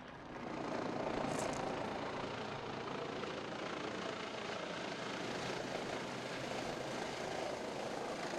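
Eurocopter helicopter hovering low, a steady noise of rotor and turbine that grows louder about half a second in and then holds.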